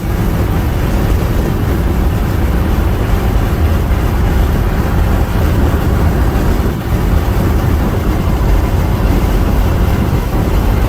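Steady low rumble and hiss of road and wind noise inside a moving car.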